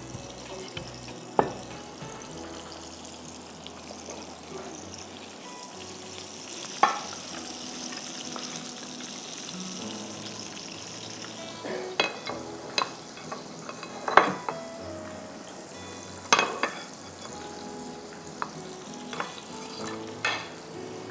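Food sizzling in a frying pan on a gas burner: a steady hiss that is strongest in the first half. Several sharp clinks and knocks of plates and utensils come through, most of them in the second half.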